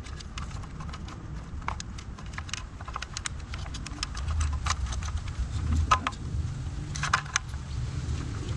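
Irregular light clicks and rattles of plastic wire connectors, wire bundles and a small controller box being handled and pushed into an e-bike's frame housing, over a low steady rumble.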